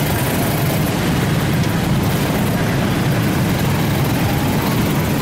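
Steady low rumble of motor-vehicle engine noise, with no horn sounding.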